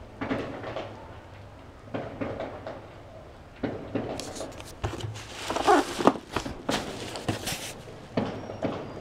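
Cardboard laptop shipping box being handled and turned over, with irregular scraping and rustling of the cardboard and packing material, loudest just past the middle. A low steady hum runs underneath.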